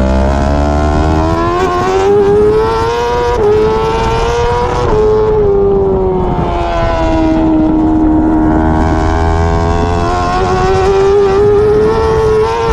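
BMW S 1000 RR inline-four engine running at high revs through an Akrapovič titanium exhaust, loud and steady. Its pitch climbs over the first few seconds, sinks in the middle, and climbs again near the end.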